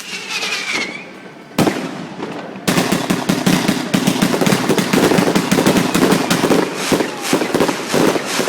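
Fireworks going off: a faint whistle falling in pitch, a single loud bang about a second and a half in, then a long rapid string of firecracker bangs, like a firecracker roll, for about five seconds, thinning out near the end.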